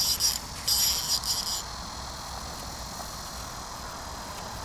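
An insect, a cricket or grasshopper, stridulating in two short high-pitched buzzing bursts in the first second and a half, then falling silent over a steady outdoor background.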